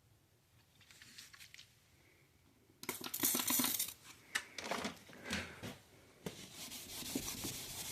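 Something being pulled and torn away by hand: a loud ripping tear about three seconds in, then shorter rips and a steady scraping rub toward the end.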